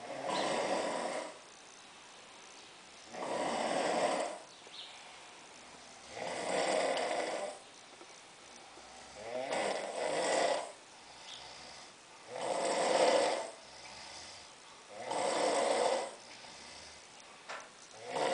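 A man snoring in a heavy, drunken sleep, one long snore on each breath about every three seconds.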